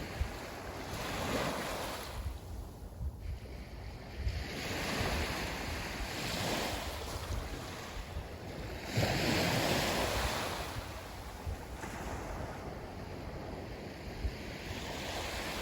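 Sea waves breaking and washing up the beach, swelling and fading every few seconds, with wind rumbling on the microphone.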